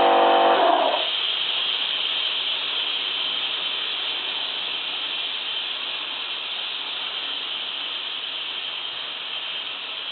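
Air compressor motor cutting off under a second in, followed by a steady hiss of compressed air escaping from the receiver, slowly fading. The tank is not holding pressure after shutdown, a leak the repairer blames on the check valve.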